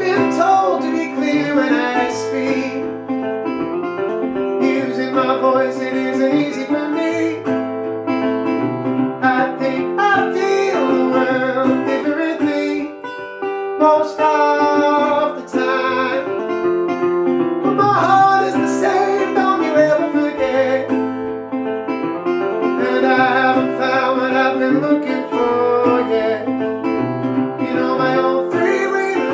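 Acoustic guitar music: an instrumental passage of a song, plucked and strummed, with no sung words.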